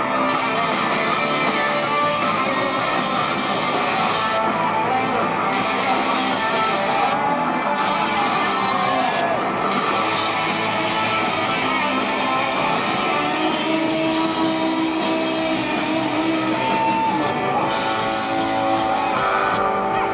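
Live rock band playing, with electric guitars prominent.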